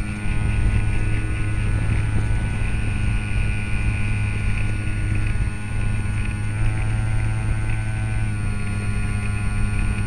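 Remote-control model airplane's motor running steadily, heard close up from on board the plane, over a low rumble of wind and vibration. Its pitch rises slightly about six and a half seconds in and drops back about two seconds later.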